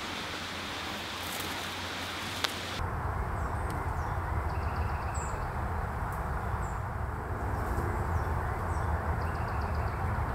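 A steady even hiss broken by a single sharp click, then, about three seconds in, outdoor woodland ambience: a low rumble underneath, with small birds chirping and giving short trills now and then.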